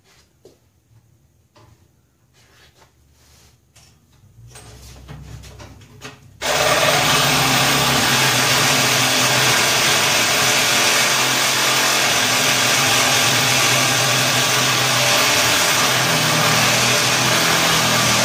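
Handheld power cutting tool running steadily, cutting the truck's old exhaust loose. It starts abruptly about six and a half seconds in, after a few quiet clicks of handling.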